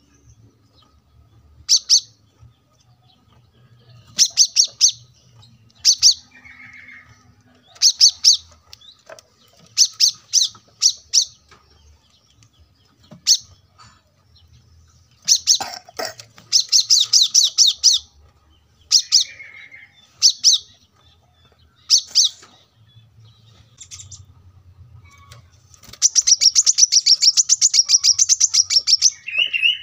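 Male brown-throated sunbird (kolibri kelapa) singing: short bursts of rapid, high chirping notes every second or two, then a long fast trill near the end.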